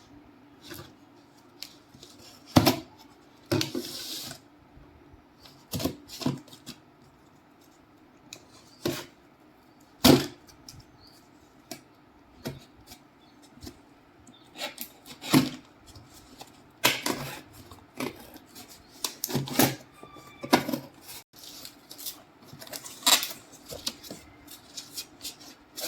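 Cardboard box and packaging being opened and handled: scattered knocks and taps with short bursts of rustling and scraping.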